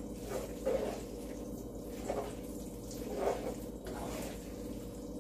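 Spatula stirring macaroni and cheese with fried linguica in a frying pan: a few soft, squishy strokes at uneven intervals over a steady low hum.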